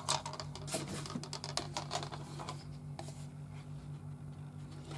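A photo print and a plastic cutting-machine scanning mat being handled on a tabletop: light rustles, scrapes and small taps, thinning out after about three seconds, over a steady low hum.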